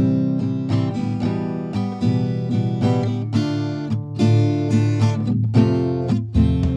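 Background instrumental music of plucked-string notes and chords, a new note sounding every fraction of a second.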